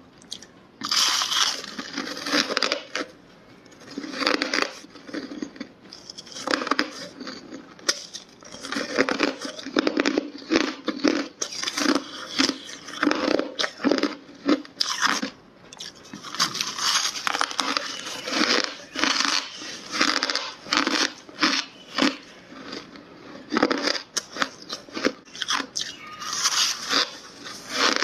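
Hard ice being bitten and chewed, heard close to the mouth: a dense, irregular run of sharp crunches with a few brief pauses.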